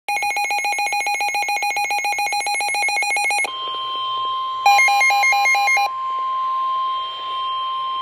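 Weather alert radios sounding a severe thunderstorm warning. A rapid electronic beeping, about a dozen beeps a second, stops after about three and a half seconds and gives way to the steady single-pitch NOAA Weather Radio warning alarm tone. For about a second near the middle, a second radio adds a fast warbling two-note alarm.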